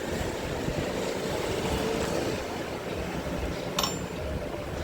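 Steady background rumble and hiss, with one sharp click a little before the end.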